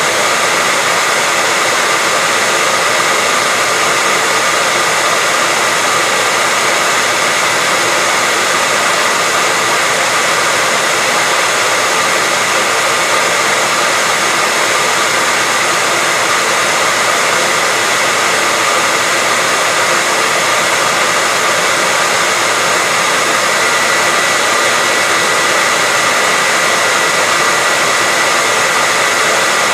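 Hair dryer running continuously at a steady speed: an even rushing blow with a steady high whine in it, used as white noise.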